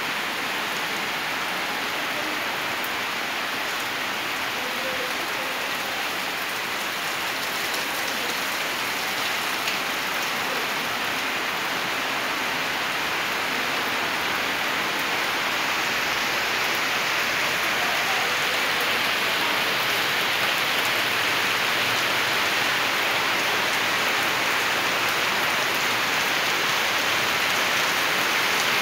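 Steady rain pouring down on wet ground, puddles and leafy trees, growing a little louder over the second half.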